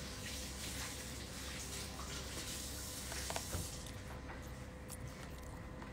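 Quiet eating sounds: a plastic fork clicks against a plate a few times about three seconds in, over a steady background hiss.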